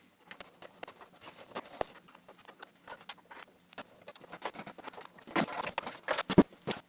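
Light clicks and taps of parts being handled inside an opened Amiga 2000 case, with a cluster of louder knocks about five to six and a half seconds in.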